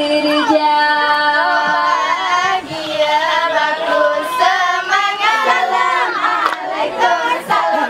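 Young female voices singing together in unison, the song of a seated Acehnese group dance: one long held note opens, then the melody moves in short rising and falling phrases.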